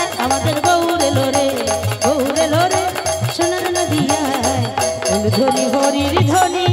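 Devotional kirtan music: drums and percussion keep a fast, even beat under a bending melody line.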